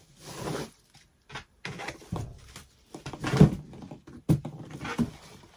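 A large cardboard gift box being handled and shifted: several bouts of rubbing and scraping with soft knocks, the loudest about three and a half seconds in, and a sharp click a little later.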